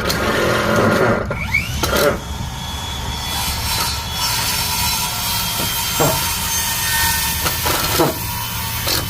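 Power screw gun driving a long screw into framing lumber: the motor spins up with a rising whine, then runs steadily under load as the screw grinds into the wood, with a few knocks along the way.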